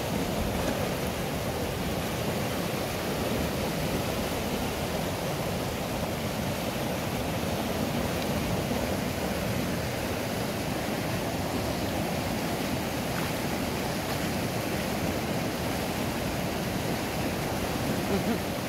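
Mountain river rushing over rocks and rapids: a steady, even wash of white water.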